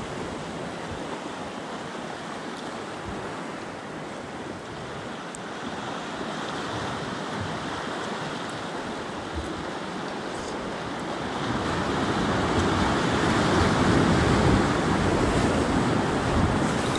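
Ocean surf breaking and washing over shoreline rocks, a steady rushing that grows louder about two-thirds of the way through.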